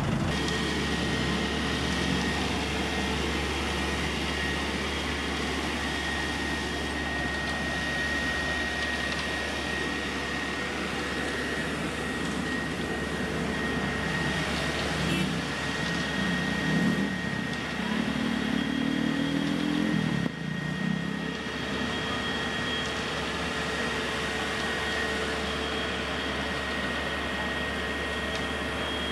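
Diesel engine of a concrete mixer truck running steadily at constant speed, with a steady whine over its low hum. A louder engine sound comes and goes between about 15 and 20 seconds in.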